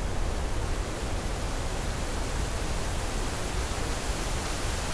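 Steady rushing noise of a waterfall, with wind buffeting the microphone in the low end.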